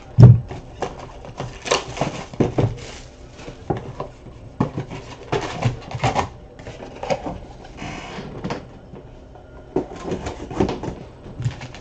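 Hands opening a cardboard card box and handling wrapped trading-card packs on a table: scattered taps, knocks and wrapper rustling, with a loud thump just after the start.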